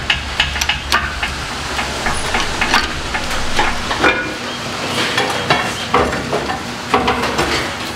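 Scattered metal clinks and knocks as the John Deere 550 dozer's engine, freed from the bell housing, is shifted and eased out on a lift, over a low rumble that drops away about halfway through.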